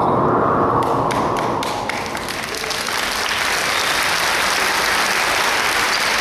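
Audience applauding: scattered claps start about a second in and swell into steady applause.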